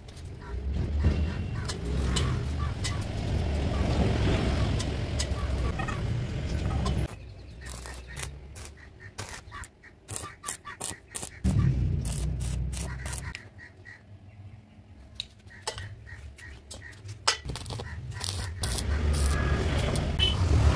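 Arc welding on square steel tubing: three stretches of steady crackling arc over a low hum, the longest at the start, with scattered sharp clicks and taps between them.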